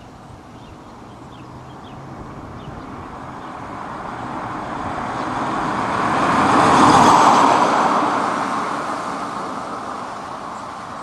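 An electric-converted 1967 MGB-GT, driven by a 3-phase AC motor with no combustion engine, passing by. Its tyre and road noise swells to a peak about seven seconds in, with a faint high whine at the peak, then fades as it drives away.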